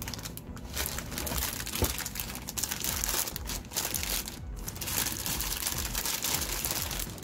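Clear plastic packaging bag crinkling and rustling as it is handled around a monitor mount arm, with a brief lull a little after four seconds in.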